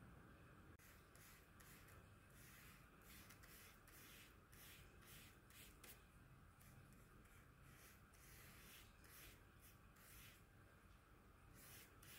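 Faint, repeated short scratchy strokes of an oil paintbrush dabbing and dragging paint across oil paper.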